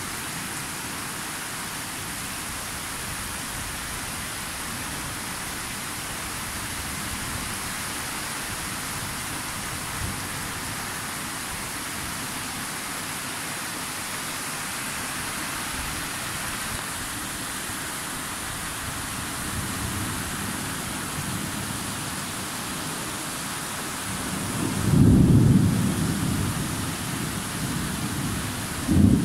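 Steady rain hiss during a thunderstorm. Near the end a loud thunderclap rumbles in low and rolls away over a few seconds, and a second sharp crack of thunder comes just at the close.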